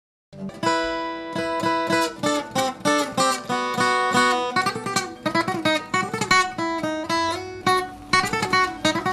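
Acoustic guitar music: a quick run of plucked notes and chords, starting a moment in.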